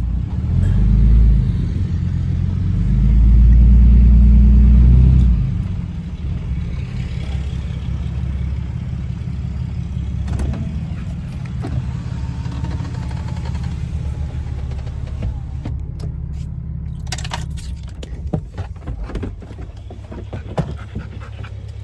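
A vehicle engine running close by. It revs up briefly about a second in and again for a couple of seconds from about three seconds in, then settles to a steady run. A few knocks and clatters come near the end.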